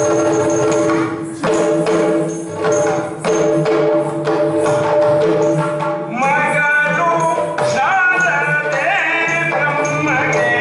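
Yakshagana himmela music: a steady drone under a run of drum and cymbal strokes, with a singer's voice coming in about six seconds in, gliding in pitch.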